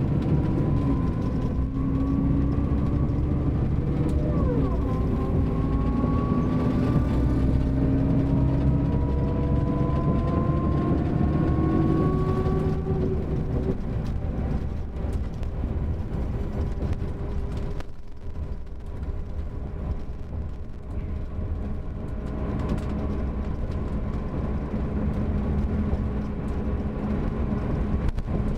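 Mercedes-Benz OM-457LA inline-six turbodiesel of a double-decker coach with a ZF automatic gearbox, pulling under load. Its pitch rises steadily for about thirteen seconds, then drops back to a quieter, steadier run.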